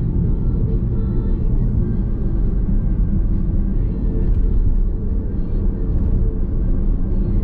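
Steady low road and tyre rumble inside the cabin of a moving Nissan X-Trail hybrid SUV.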